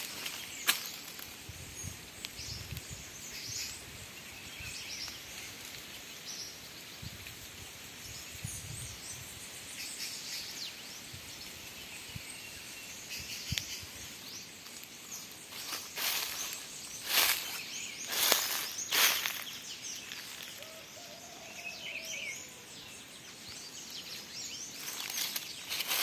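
Footsteps crunching through dry leaf litter, in clusters of loud crunches a little after halfway and again near the end, over a quiet forest background with faint bird chirps.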